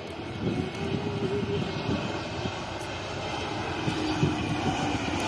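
Jet airliner engines running, a steady rushing noise that grows louder as the aircraft comes closer.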